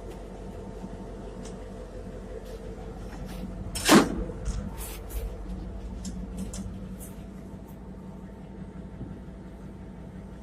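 A steady mechanical hum with one loud clunk about four seconds in, followed by scattered lighter knocks and clicks.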